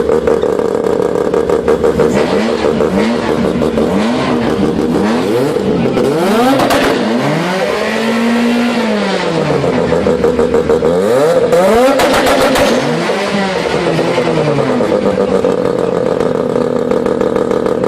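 Mazda 13B two-rotor rotary engine idling with a choppy, pulsing note, then revved in a string of quick blips, one longer rev about eight seconds in, before settling back to idle near the end.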